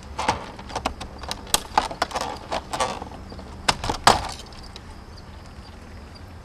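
Garage-door keypad being prised off vinyl siding with a flat pry bar: a quick run of sharp clicks, knocks and cracks for about four seconds, then it goes quieter.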